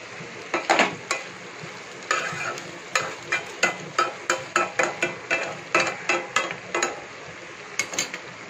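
Slotted steel spoon scraping and turning colocasia (taro) pieces in a non-stick pan, in quick strokes about three a second, over the steady sizzle of the taro frying in oil without water.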